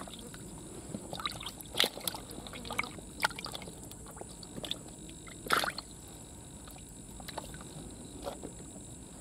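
Water sloshing and splashing in a small mesh-walled keep box of caught climbing perch as a hand stirs the water and lifts a fish out, with a few short splashes, the loudest about five and a half seconds in.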